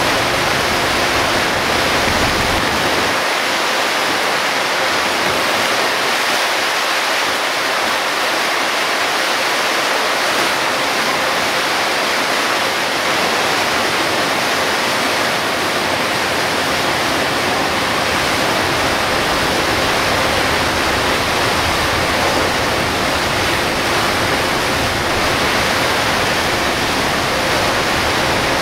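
Steady, loud hiss of torrential rain and tyres running through standing water on a flooded road under a Hino Selega HD bus. The low road and engine rumble drops away about three seconds in and comes back after about ten seconds.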